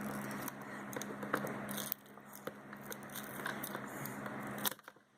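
Small clicks and light scraping of plastic tablet parts being handled and pried at, over a steady low hum that cuts off near the end.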